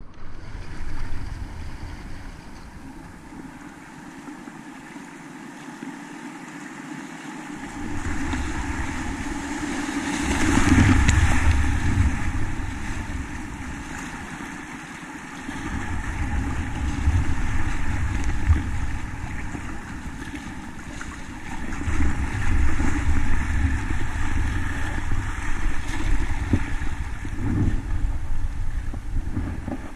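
Fast, swollen river water rushing and splashing around a whitewater kayak, with low rumbling buffeting on the microphone that comes and goes. It is loudest around ten to twelve seconds in.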